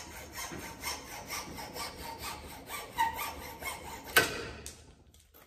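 Hacksaw cutting through the wooden hammer handle where it sticks out above the head, in quick back-and-forth strokes. A single loud knock comes about four seconds in, then the sawing stops.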